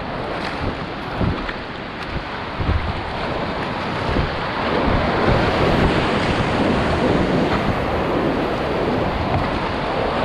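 Whitewater rapid rushing around a kayak, with water and wind buffeting the microphone in irregular thumps. The rush grows louder about halfway through as the boat runs into the whitewater.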